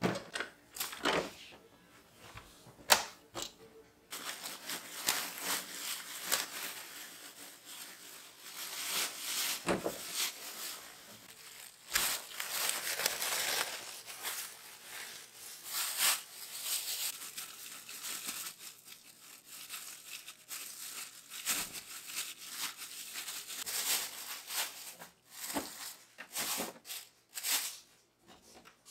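Thin plastic refill bag of a diaper disposal bin rustling and crinkling as it is handled, with a few sharp clicks in the first three seconds.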